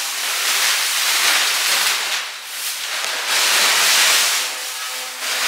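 Thin plastic masking sheet rustling and crackling as it is handled over a car body shell, swelling and easing unevenly.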